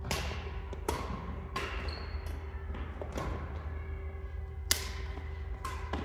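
Badminton rackets hitting a shuttlecock during a doubles rally: a string of sharp hits about once a second, the loudest about three-quarters of the way through, over a steady low hum in the hall.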